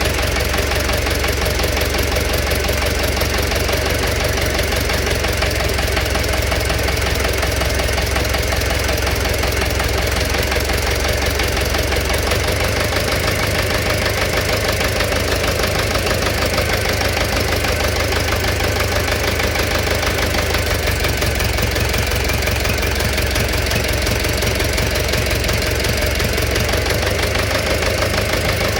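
Engine running steadily with a rapid, regular knock from inside it.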